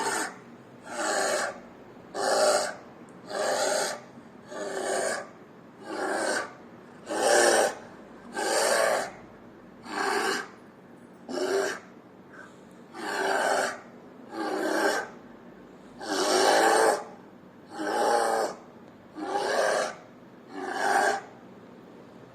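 A bear huffing with heavy, rhythmic breaths, about sixteen in a row at roughly one every second and a half.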